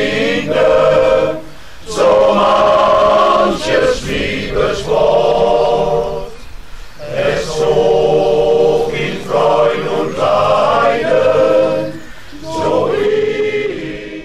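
Male voice choir singing a cappella, in phrases with short pauses between them.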